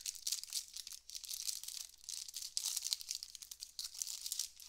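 Cellophane wrapper crinkling and tearing as it is peeled off a pack of trading cards, a steady run of crisp, high crackles with a few louder ones about three seconds in.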